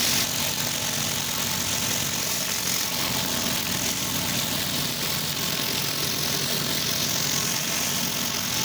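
Pressure washer engine running steadily under the constant hiss of high-pressure water spraying on concrete, as a driveway is cleaned.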